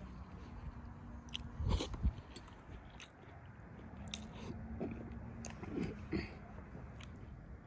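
A person chewing and biting stewed beef and bread close to the microphone, with a few sharp clicks of a fork against the bowl; the loudest moment is a dull thud about two seconds in.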